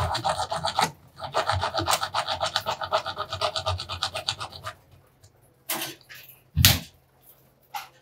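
A saw cutting through a PVC water pipe in quick, even back-and-forth rasping strokes, about five a second. It stops a little under five seconds in, and then come a few sharp knocks.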